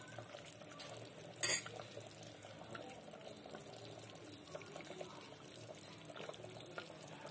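Chicken curry simmering in a pot, a faint steady bubbling, with one short clink about one and a half seconds in.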